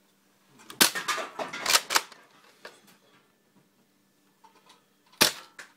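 Plastic clacks of a Nerf blaster being handled and primed, several in quick succession about a second in, then a single sharp snap of the blaster firing a foam dart near the end.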